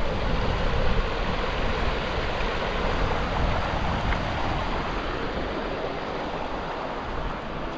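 Incoming tide flowing fast over rocks and sand: a steady rushing wash of moving seawater, easing slightly toward the end.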